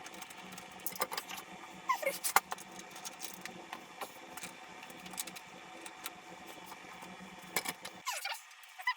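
Scattered small clicks and light metallic taps of hands working with tools and small metal parts, at irregular intervals, with a cluster around two seconds in and another near the end.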